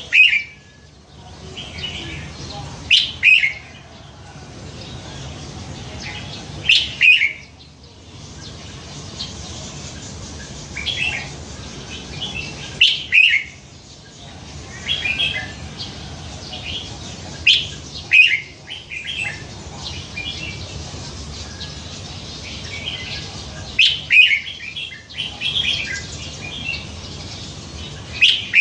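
Caged red-whiskered bulbul singing short, varied phrases of about a second each, a few seconds apart, over a steady low hum.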